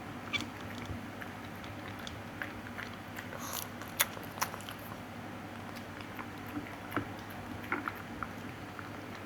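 Scattered light clicks and crunches over a steady low room hum.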